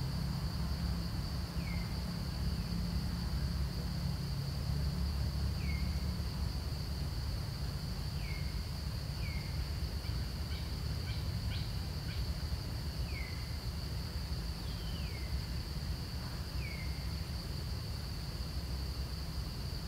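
Outdoor insect chorus: a steady high-pitched drone over a low rumble, with short falling chirps every couple of seconds and a few faint clicks near the middle.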